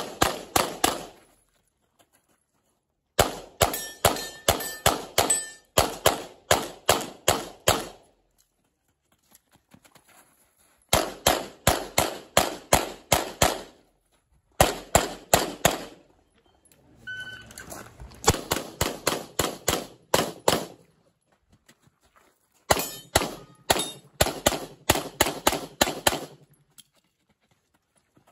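Pistol fired in rapid strings during a USPSA stage: six bursts of fast shots, several a second, with short pauses between bursts while the shooter moves to the next position.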